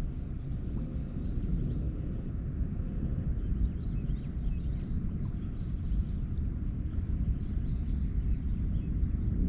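Outdoor ambience: a steady low rumble, with faint short high chirps scattered over it.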